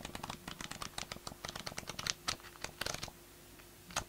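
Pages of a 6.5 inch craft paper pad being riffled with a thumb: a rapid run of papery flicks and ticks that stops about three seconds in.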